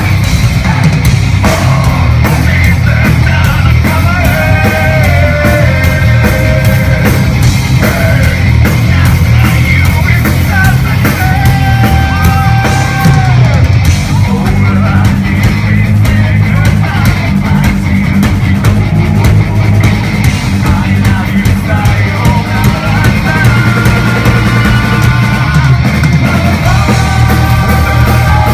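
A rock band playing live: electric guitars, bass and a drum kit, with a singer's long held notes over them. The sound is loud and dense, picked up by a phone's microphone from inside the crowd.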